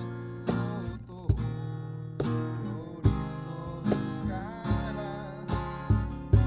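Music: a strummed acoustic guitar over a steady beat of low thumps about twice a second.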